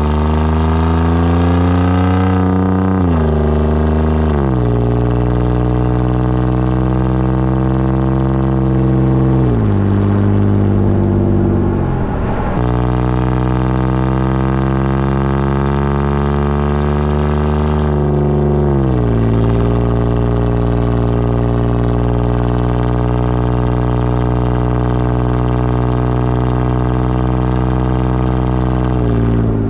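Straight-piped Toyota Sienna minivan engine running under way with a loud exhaust drone. Its pitch climbs slowly and drops sharply about six times, like a drivetrain shifting or the throttle being lifted.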